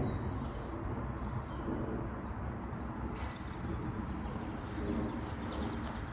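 Outdoor ambience: a steady low rumble with a few faint bird chirps about three seconds in and again near the end.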